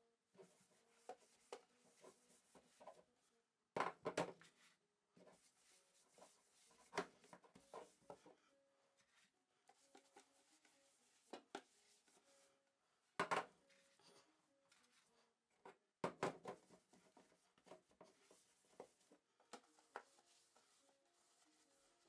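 Quiet rubbing of greasy paper against the inside of a non-stick metal loaf pan as it is greased, with a handful of sharp knocks as the pan is handled and turned.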